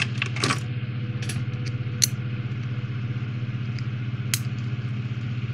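A few light clicks and taps of a small hard-plastic model kit part being handled and pressed with the fingers, over a steady low hum.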